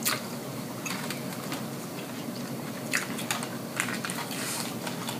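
Close-up eating sounds: chewing with mouth smacks, and the sticks clicking against food on the plate. There are a handful of short, sharp clicks at uneven intervals over a low, steady room hum.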